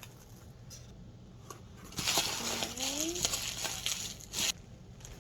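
Packaging crinkling and rustling as a parcel is unwrapped, starting about two seconds in and dying away after about four and a half seconds, with a few light clicks.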